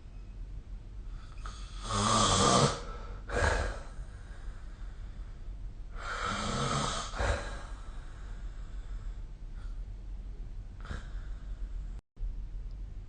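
A sleeping person snoring: two long rasping snores about four seconds apart, each with a low rattling rumble and followed by a short puff of breath.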